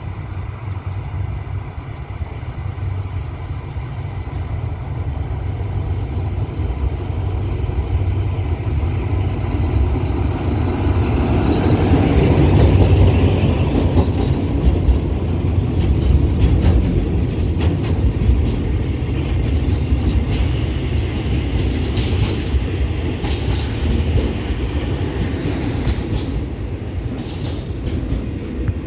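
Alsthom diesel-electric locomotive hauling a long freight train approaches and passes, its engine growing louder to a peak about halfway. After it, a long run of tank wagons and container flats rolls by with clicking wheels and brief high wheel squeals on the curve.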